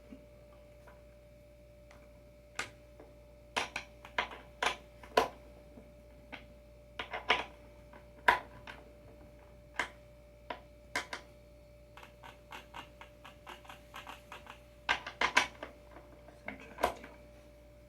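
Irregular clicks and clacks of surfskate adapter hardware being handled and its bolts tightened with a tool, with a run of quicker small clicks in the middle.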